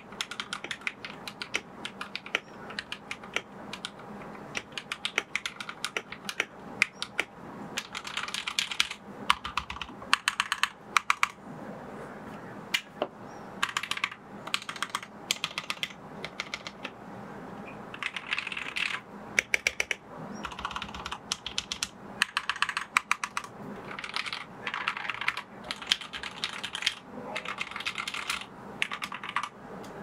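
Typing on an RK71 mechanical keyboard fitted with milky green linear switches and lubed stabilizers: a steady stream of keystroke clacks in quick runs with short pauses, stopping near the end.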